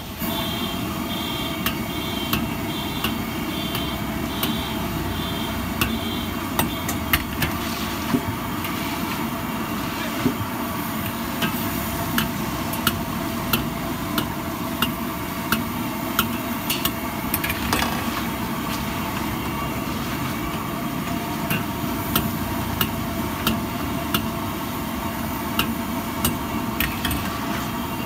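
Metal ladle knocking and scraping against a steel wok as sweet potato balls are stirred in hot frying oil, with sharp clinks scattered irregularly over the steady hiss of the frying.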